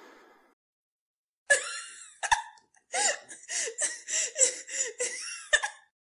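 A girl laughing in a quick run of giggles, about three or four a second, beginning about a second and a half in.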